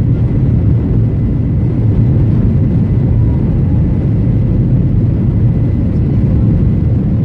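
Passenger airliner heard from inside the cabin: a loud, steady low rumble of the engines and airframe.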